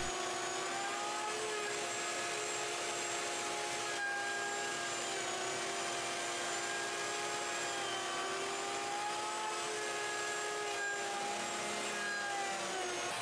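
Router with a large straight bit running on a router sled, flattening the end grain face of a cutting board, with shop vacuums running for dust collection. A steady whine whose pitch wavers slightly as the bit cuts.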